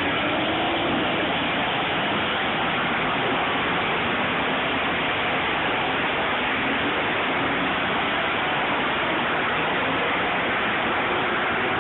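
Engines of a pack of vintage big-block race cars lapping the track, heard at a distance as a steady dense rush with faint engine notes rising and falling through it.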